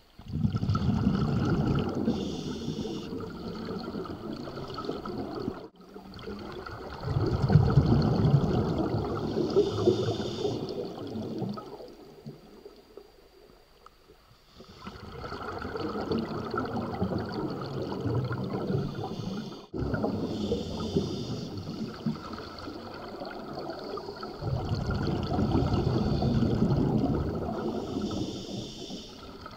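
Scuba breathing through a regulator underwater: several long, bubbling rumbles of exhaled air, each followed by a short hiss of inhaled air.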